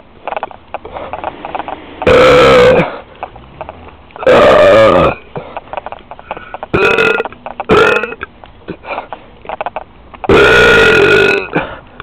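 A person burping loudly five times: long, pitched belches a couple of seconds apart, with two short ones in quick succession midway. Faint clicks sound between the burps.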